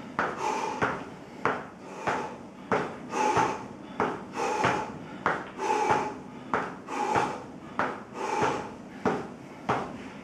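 Sneakered feet landing in a quick, even rhythm on foam gym floor mats during alternating knee raises, about three thuds every two seconds, each thud followed by a short scuffing hiss.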